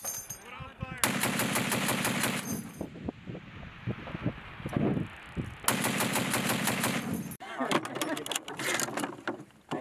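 M2A1 .50-calibre heavy machine gun firing two bursts of rapid shots, each about a second and a half long, the first about a second in and the second about five seconds later, each trailing off in an echoing tail.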